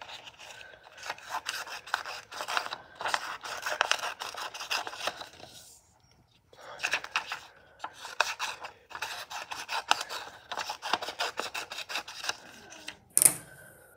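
Scissors cutting through a sheet of brown paper in quick runs of snips, with a short pause about six seconds in. A single sharp knock near the end.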